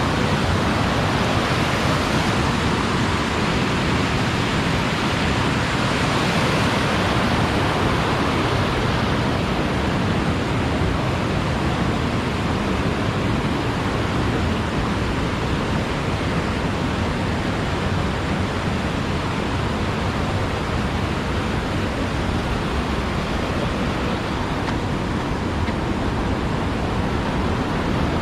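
Waterfall, with water rushing loudly and steadily.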